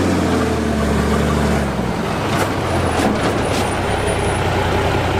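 Army 5-ton 6x6 truck with its 855 Cummins diesel running as it drives over gravel; the steady engine note gives way to a rougher rumble about two seconds in, with a few short sharp ticks or hisses near the middle.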